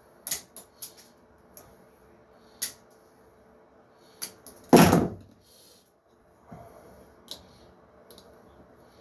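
Light clicks and knocks from parts being handled at a workbench, with one louder knock about five seconds in.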